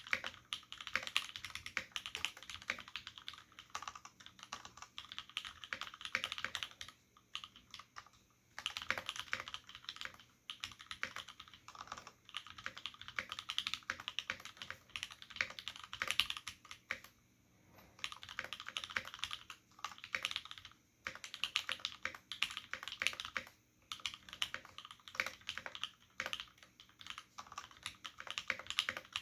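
Steady typing on a mechanical keyboard with lubed Cherry MX Black switches in an aluminium full plate, with Cherry dye-sublimated keycaps: a dense run of keystroke clacks broken by a few brief pauses.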